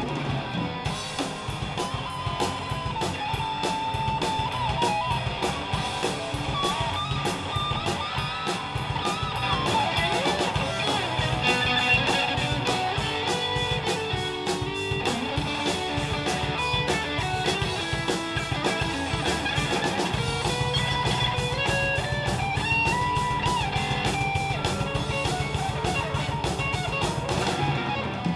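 Live hard rock/heavy metal band playing an instrumental passage: an electric guitar plays bending, gliding lead lines over chugging rhythm guitar, bass and a steady drum beat.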